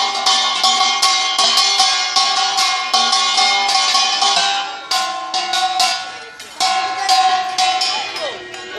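Ritual metal percussion, struck rapidly in a steady rhythm of several strikes a second, with ringing metallic tones sustained under the strikes. The striking breaks off briefly about halfway through, then starts again.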